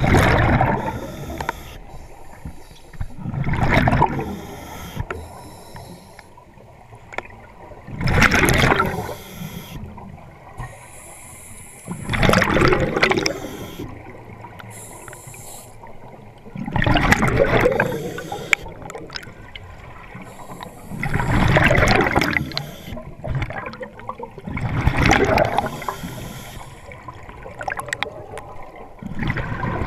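Scuba regulator exhaust heard underwater: a burst of exhaled bubbles about every four seconds, each lasting a second or so, with a softer hiss between breaths.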